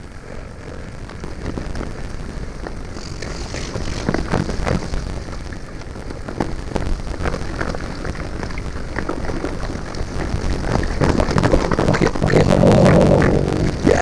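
Mountain bike rolling fast down a rocky, leaf-strewn trail: continuous low rumble and wind noise with dense rattling and knocking from the tyres and bike over the ground, getting louder toward the end. It is recorded through a GoPro Hero5 Black whose audio the owner thinks is faulty.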